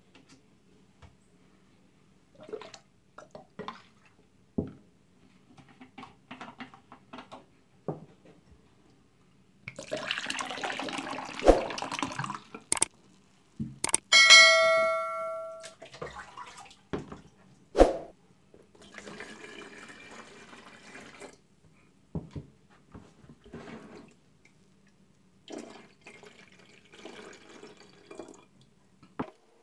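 Foamy cleaning liquid poured from a cup into a plastic coolant tank sitting in a plastic basin, in several splashy pours, with scattered clicks and knocks of handling. About 14 seconds in comes a ringing clink, the loudest sound, dying away over a second or two.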